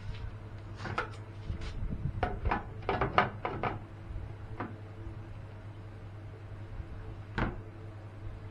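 A quick run of light knocks and clatters, about a dozen over some three seconds, then two single knocks later on, over a steady low hum.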